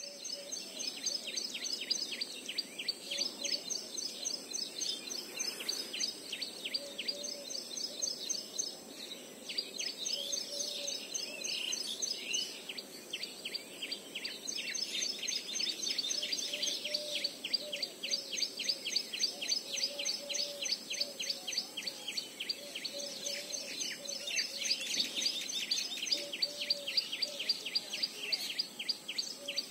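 Birds chirping in rapid, continuous runs of short high calls, several a second, with a lower warbling call coming and going beneath them.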